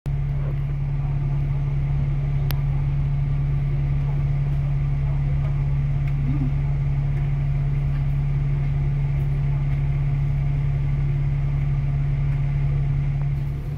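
A vehicle engine idling: a steady, unchanging low hum with a rumble beneath it.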